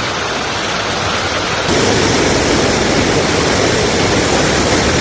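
Waterfall rushing close to the microphone: a loud, steady roar of falling water that grows louder about two seconds in.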